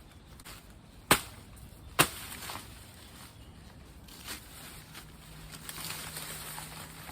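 Two sharp knocks about a second apart, followed by a few fainter clicks.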